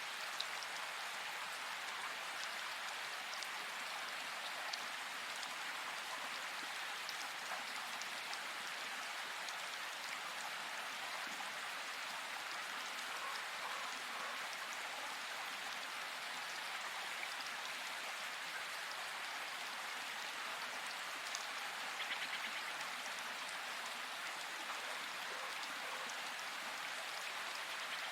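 Steady hiss of rain or running water, dotted with small ticks and drops. A few faint, brief chirp-like sounds rise above it, the clearest a short rapid trill about 22 seconds in.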